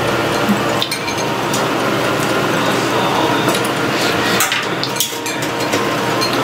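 Utensils clinking against bowls and the hot pot during a meal: scattered light clicks and clinks over a steady background noise.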